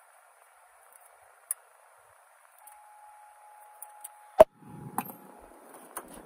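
A few faint clicks and one sharp click about four seconds in, from hands working at a GM factory navigation radio in the dashboard, followed by a brief low rustle.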